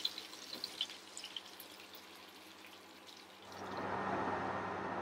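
Hot oil crackling and spitting in a frying pan of kababs, the pops thinning out and fading. About three and a half seconds in, a steady hiss with a low hum sets in.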